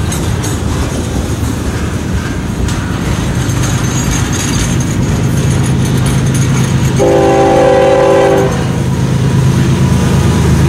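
Intermodal freight cars rolling past close by with a steady rumble and wheel clatter, while an approaching Norfolk Southern diesel locomotive blows its horn once, a chord of about a second and a half, about seven seconds in. The locomotive's engine drone grows louder near the end.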